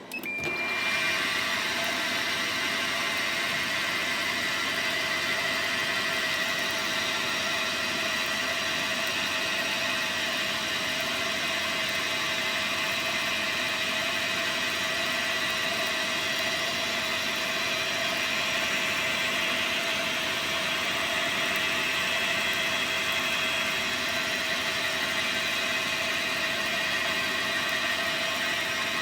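Dyna Mechtronics DM3000 CNC lathe starting up and then running steadily, a machine noise carrying several steady whining tones.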